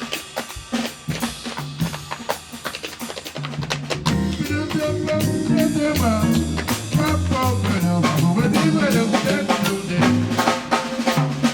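Instrumental music: a drum kit playing on its own at first, with snare and rimshot hits, then a bass line and melody instruments come in about three and a half seconds in.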